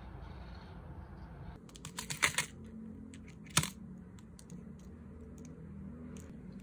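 A metal fork clicking against a thin plastic food tray: a quick run of clicks about two seconds in, one sharp click about a second later, then a few faint ticks.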